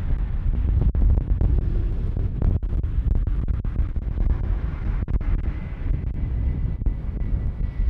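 Jet engines of a departing Airbus A350 (Rolls-Royce Trent XWB) giving a deep, steady rumble, with wind buffeting the microphone. A faint high whine joins in about two thirds of the way through.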